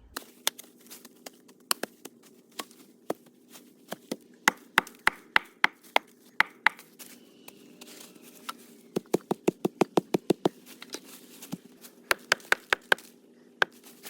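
Chopping blows on wood: sharp knocks, scattered at first, then in quick runs of about four a second.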